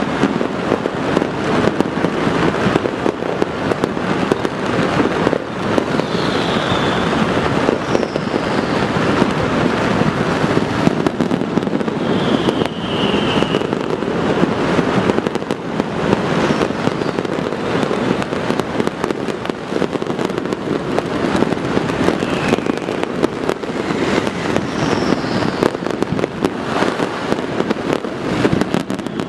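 Many fireworks and firecrackers going off at once: a dense, continuous crackling and popping with no pause, cut through now and then by a few short whistles.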